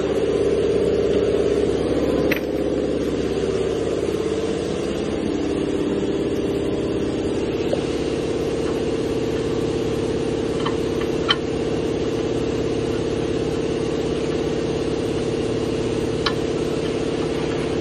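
A steady machine drone at a fixed pitch, wavering a little in the first few seconds, with a few light clicks of metal as the oxygen sensor is worked out of the exhaust manifold.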